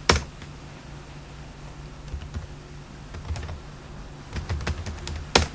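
Computer keyboard keystrokes: a loud key press just after the start and another near the end (the Enter key submitting commands), with a few scattered softer key taps between them as a command is retyped. A steady low hum runs underneath.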